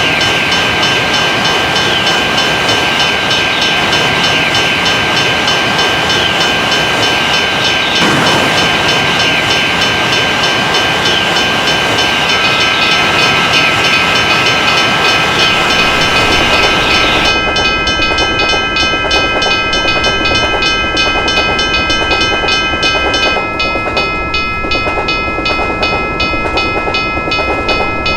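A train passing a level crossing, its wheels clattering over the rails, while the crossing bell rings in a fast, even rhythm. The hiss of the passing train thins out about two-thirds of the way through.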